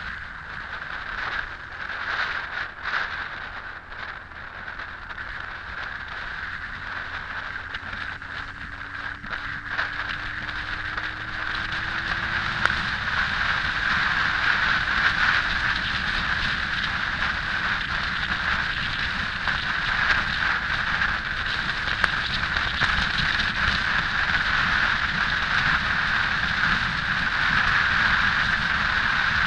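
Wind rushing over a camera mounted on a moving Honda X4 motorcycle, with the bike's inline-four engine under it. The engine note rises slowly, breaks and settles a little lower about halfway through, and the wind noise grows louder from then on as the speed picks up.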